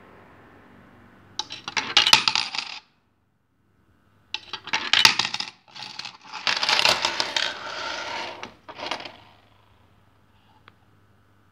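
Metal 10-dollar coins passing through a JY-922 coin acceptor and clinking down onto a pile of coins below. A short clatter comes a little over a second in, then a longer run of coins jingling and scraping together that dies away about nine seconds in.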